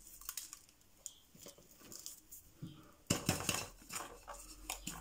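Handling noise from a plant and its ceramic pot: scattered light clicks and rustles, then a louder stretch of clattering and scraping about three seconds in as the pot, topped with decorative pebbles, is picked up.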